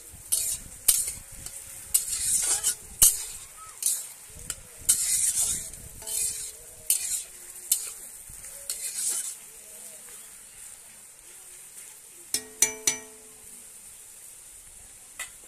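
Sliced onions frying in oil in a kadai, sizzling while a metal spatula scrapes and stirs them in quick strokes. The stirring stops about ten seconds in, leaving a quieter sizzle. Near the end come a few ringing metal clinks.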